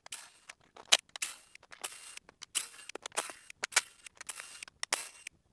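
Screws being backed out of a wooden shipping crate with a screwdriver: a steady run of short grinding, clicking strokes, about two a second.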